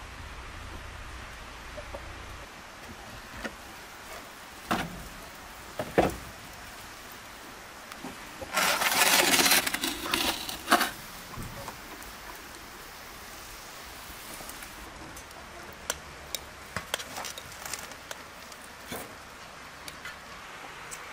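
A metal roasting tray dragged out across the floor of a clay oven: a loud scrape of about two seconds, near the middle. Around it, scattered clinks and knocks of dishes and utensils.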